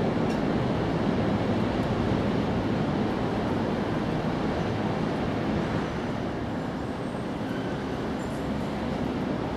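Steady low rumble of outdoor background noise, even and without distinct events, easing slightly about six seconds in.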